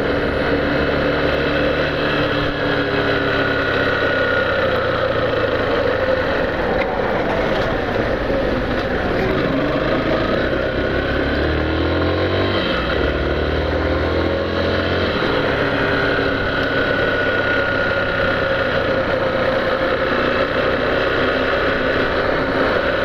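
Yamaha Factor 150 single-cylinder motorcycle engine running on the move, with wind rush. The engine note rises and falls in pitch around the middle as the speed changes.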